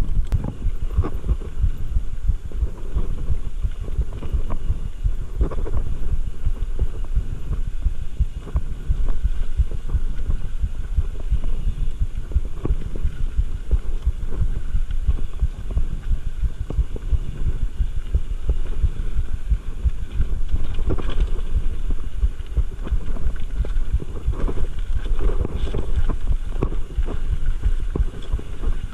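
Mountain bike riding rough singletrack over leaves, dirt and rock: a steady low rumble of tyres on the trail, full of small knocks and rattles from the bike shaking over the bumps.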